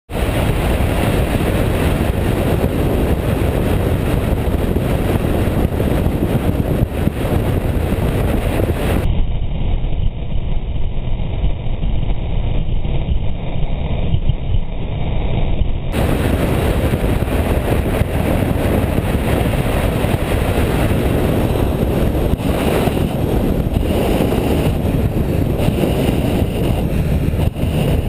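Steady rush of wind on the microphone over the running of a BMW R1200GS boxer-twin motorcycle at road speed. For several seconds about a third of the way in, the sound goes duller, losing its top end.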